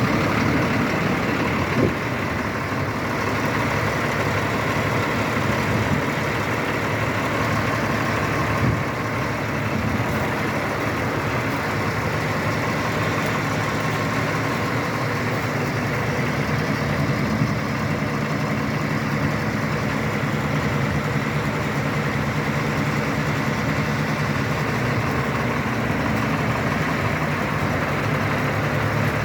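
A 250 hp Caterpillar diesel engine idling steadily, with three brief knocks along the way.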